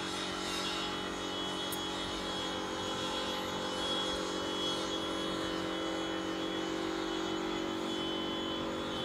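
Steady mechanical hum made of several held tones, a machine-like drone that swells slightly about halfway through.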